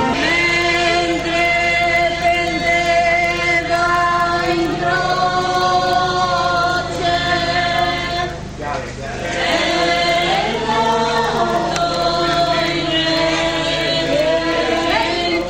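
A group of voices singing a slow chant in long held notes, breaking off briefly a little past halfway and then starting again.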